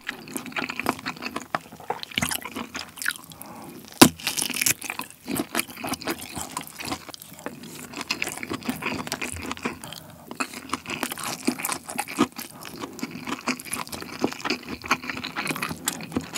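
Close-miked chewing of kielbasa sausage and fried rice: a run of small mouth clicks and smacks, with one sharp, louder click about four seconds in.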